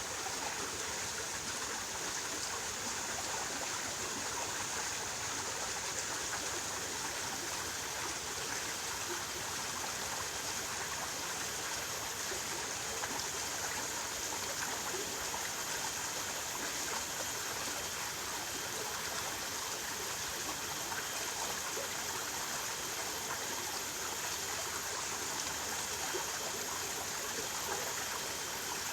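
Water of a stream or river flowing steadily, an even rushing and trickling with no breaks.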